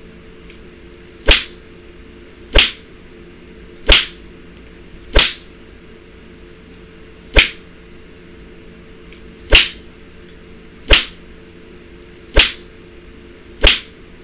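Nine sharp cane strokes landing on bare skin, about a second and a half apart, with two longer pauses midway. They are strokes of a 25-stroke caning past its halfway point.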